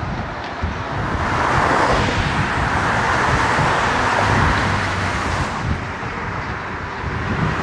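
Road traffic: cars driving past on the street, a hiss of tyres and engine noise that swells from about a second in, peaks midway and eases off, with another car approaching near the end.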